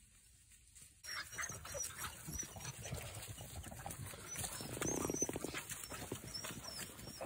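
Hunting beagles milling about close by, sniffing and scuffling in the grass. The sound starts suddenly about a second in, with many short clicks and rustles and a brief low pulsing sound from a dog around five seconds in.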